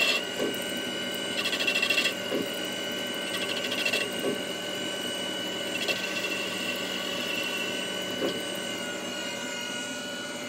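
CNC lathe boring out an aluminium turbo compressor housing to take a larger compressor wheel. The spindle runs with a steady whine, and bursts of cutting noise come about every two seconds as the tool passes. The bursts die away after about six seconds.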